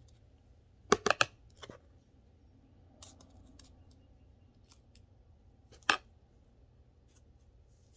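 Sharp clicks and taps from fingers working a small plastic pot of chunky perlite potting mix: three quick clicks about a second in, a few fainter ones after, and one louder click near six seconds.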